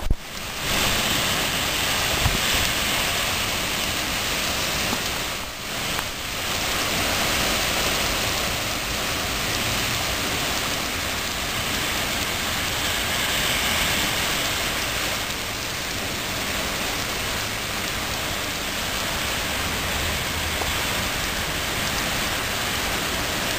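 Heavy rain pouring down steadily in a bad storm, a constant, even rushing hiss.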